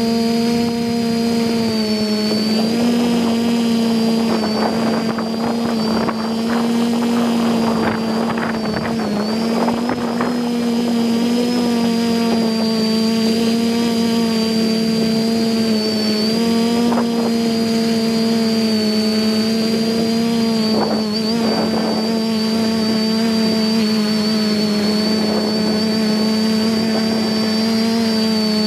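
Brushless motors and propellers of a TBS-frame quadcopter in flight, heard through its onboard camera: a steady buzzing hum with a high whine above it, the pitch shifting slightly with the throttle. A few brief rustles come through, mostly in the first ten seconds.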